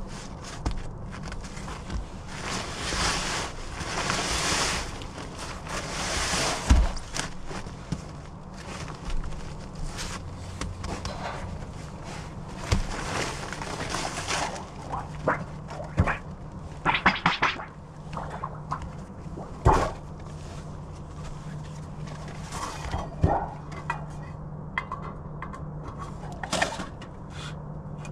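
Irregular knocks, taps and scuffing of hand work on a roof at a brick chimney base, with patches of rushing noise in the first few seconds and a steady low hum coming in about halfway.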